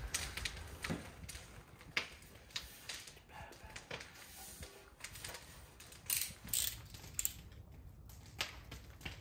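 Scattered light clicks and knocks of wood boards and hand tools being handled, a few sharper ones about two, six and seven seconds in.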